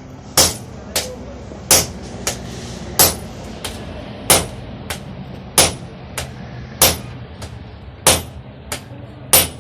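Blacksmith's hammer striking metal in a steady rhythm: a heavy ringing blow, then a lighter one, the pair repeating about every 1.3 seconds, over a low steady hum.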